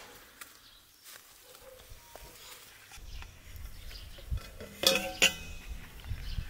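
Metal kitchenware clinking as it is handled: two sharp, ringing clinks about five seconds in, with quieter handling clicks before them.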